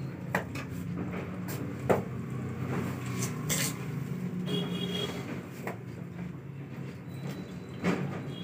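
Sharp, scattered clicks and cracks, about eight, as crisp pani puri shells are broken open and handled over steel plates, over a steady low hum.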